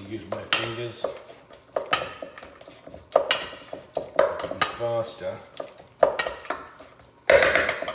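A utensil knocking and scraping against a stainless steel mixing bowl while cookie-dough ingredients are stirred by hand. The sharp clanks come irregularly, about one or two a second, with a louder flurry near the end.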